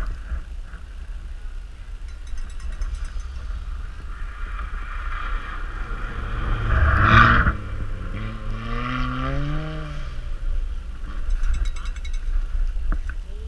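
A rally car driving past at speed, its engine revving. The sound is loudest about seven seconds in, and a rising then falling engine note follows it, over a steady low rumble.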